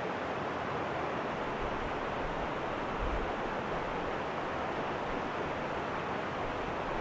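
Small stream cascading over a low rocky ledge: a steady rush of falling, churning water.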